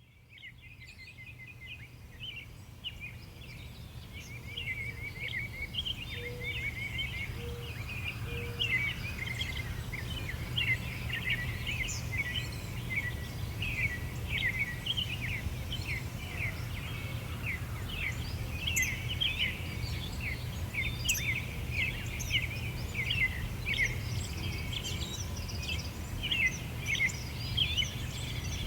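A chorus of many small songbirds chirping and trilling together over a steady low background rumble, fading in from silence over the first few seconds.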